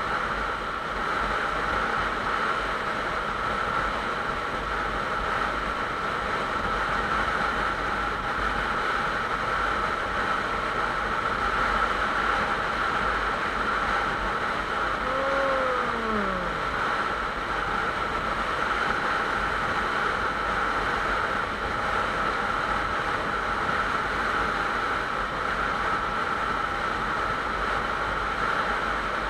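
Motorcycle cruising at highway speed: a steady rush of wind over the microphone with engine and road noise underneath. About halfway through, a short tone drops in pitch over a second or so.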